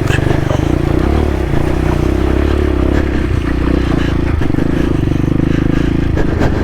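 CSC TT250 dirt bike's single-cylinder engine running steadily at low revs under load, with a few knocks near the end.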